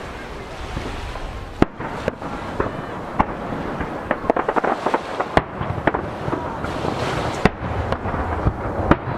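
Aerial firework shells bursting over the sea: about half a dozen sharp bangs echoing off nearby mountains, with a run of rapid crackling in the middle from glittering shells. Waves wash steadily against the jetty underneath.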